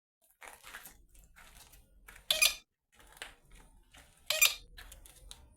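A black bird making short, harsh, scratchy sounds, loudest twice about two seconds apart, with quieter scratching between.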